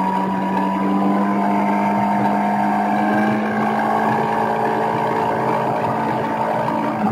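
Sport motorcycle engine heard from on board the bike, running at steady revs with little change in pitch, over a rush of wind and road noise.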